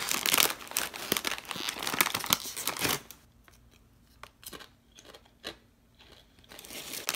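Plantain chip bag crinkling and rustling for about three seconds as a chip is taken out, then a few quieter, sparse crunches as the chip is bitten and chewed, with more bag crinkling near the end.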